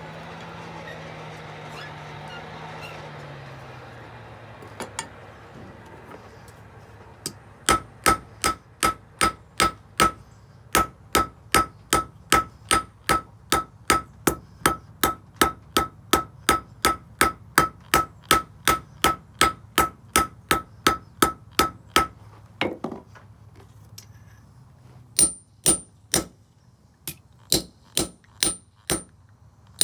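Blacksmith's hammer striking hot iron on an anvil while forging nails: a long, even run of ringing blows, about two and a half a second. After a short pause, a second group of blows rings at a higher pitch. A low hum drops in pitch and fades in the first few seconds.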